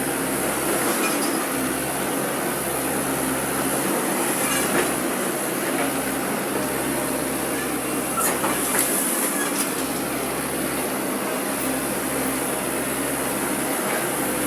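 Excavator's diesel engine and hydraulics running steadily under load while digging, with a few brief metallic clanks.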